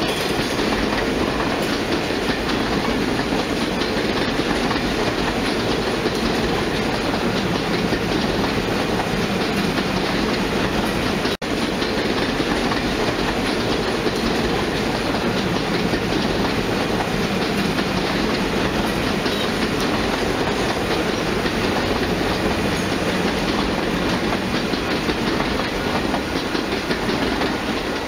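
HO scale model passenger cars rolling past on track: a steady rolling clatter of wheels on rail, with a momentary break about eleven seconds in, fading near the end as the last car goes by.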